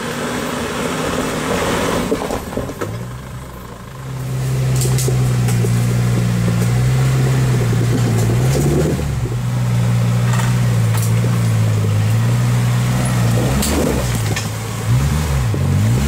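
Off-road 4WD engine crawling up a rock garden. After a softer, noisier first few seconds it runs at steady low revs, and near the end the revs dip and rise as it works over the rock steps. A few sharp knocks are heard, typical of tyres and underbody meeting rock.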